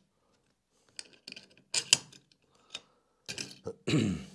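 Small hardware clicking and tapping as CNC gantry wheels, aluminium spacers and shims are handled and seated on the bolts of an aluminium plate, with separate knocks and one sharper click a little under two seconds in. Near the end comes a brief low sound that falls in pitch.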